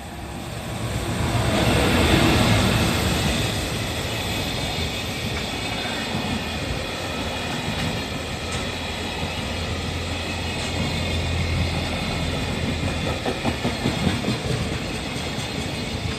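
EF210 electric locomotive hauling a freight train past at close range: the loudest rush comes as the locomotive goes by about two seconds in, then a steady rumble and clickety-clack as the freight wagons roll over the rail joints.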